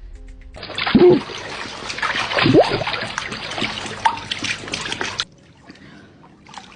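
Water splashing and sloshing, with two short rising cries about one second and two and a half seconds in; it cuts off abruptly about five seconds in.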